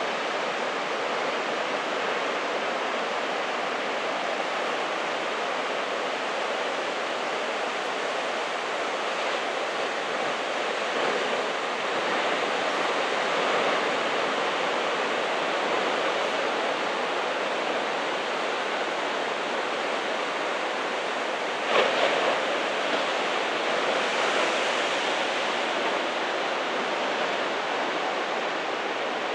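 Ocean surf breaking on the shore below, a steady wash of noise throughout, with a brief knock about three-quarters of the way through.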